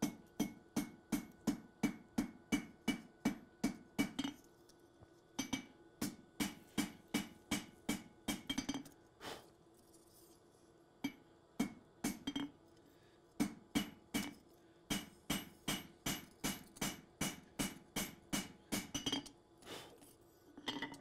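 Hand hammer striking a hot 52100 steel Bowie knife blade on an anvil, about three blows a second in steady runs with short breaks, each blow ringing. The smith is dialing in the blade's tip.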